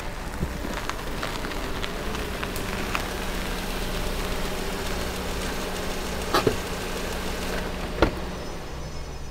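Car engine running at low speed while the tyres crackle over a dirt and gravel track, with small clicks throughout and two sharp knocks past the middle. The engine hum drops away near the end as the car stops.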